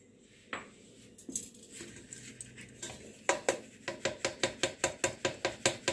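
Orange plastic mesh sieve rattling and knocking against a steel bowl as it is shaken to sift maize flour. A few soft knocks at first, then from about three seconds in a quick, even run of taps, about five a second.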